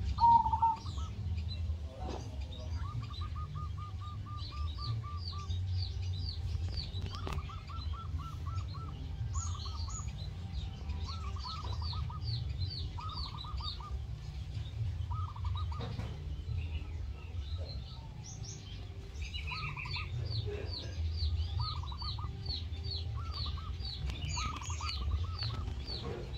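Zebra doves (perkutut) calling over and over in short, quick runs of cooing notes. Many higher chirps of small birds sound over them, and a low steady rumble runs underneath.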